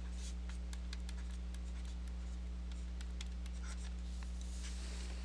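Light writing strokes, faint scattered taps and scratches, over a steady low hum.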